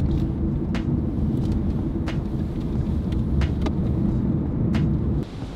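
Car road noise heard from inside the cabin while driving: a loud, steady low rumble of engine and tyres that cuts off abruptly near the end. Faint sharp ticks come about every second and a quarter.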